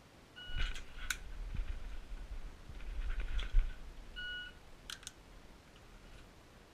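An electronic shot timer gives two short high beeps, one near the start and another about four seconds later. A pistol is dry-fired, with sharp clicks after the first beep and a pair of clicks just after the second, over low rumbling handling noise from the draw and movement.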